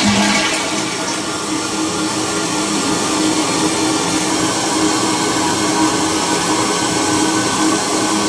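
Toilet tank refilling after a flush: water rushing through the fill valve with a loud, steady hum, a noise that is not supposed to be there and that marks a faulty fill valve.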